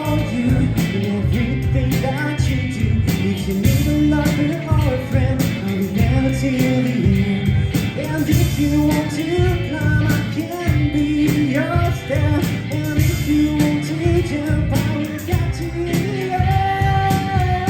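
Rock band playing live: a sung lead vocal over electric guitar, bass guitar and drums.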